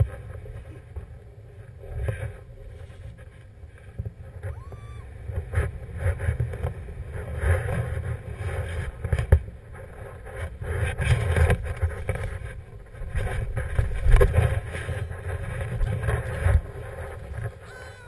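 Rushing air buffeting the camera's microphone as a tandem paraglider glides in to land, a low rumble that swells and fades in uneven gusts.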